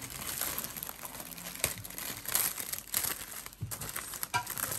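Gift wrapping crinkling and rustling in irregular handfuls as a present is unwrapped by hand.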